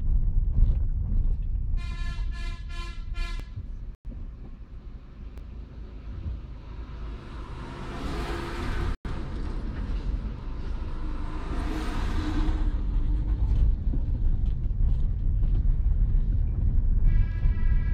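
Steady low engine and road rumble inside a car descending a steep ghat road. About two seconds in a vehicle horn sounds in a quick string of short beeps. A bus goes by with a swelling rush of noise around the middle, another vehicle passes a few seconds later, and a horn sounds again near the end.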